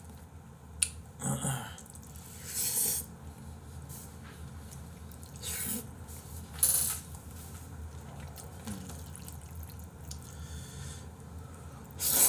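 Jjajangmyeon noodles being slurped and eaten, in several short wet slurps, with a louder, longer slurp starting near the end. A few light clicks of chopsticks against plastic food containers come between them.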